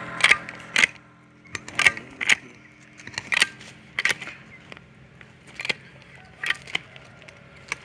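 Hand grease gun being pumped on an excavator's grease fittings: sharp metallic clicks and clacks, often in pairs about half a second apart, at an irregular pace.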